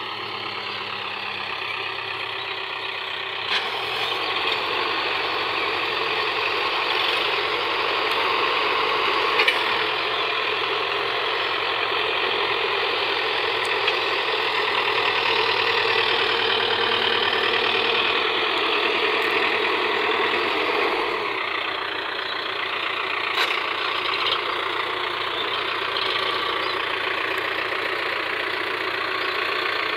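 Diesel engines of a JCB 3DX backhoe loader and a farm tractor running in a steady drone. The sound grows louder about four seconds in and eases back after about twenty seconds.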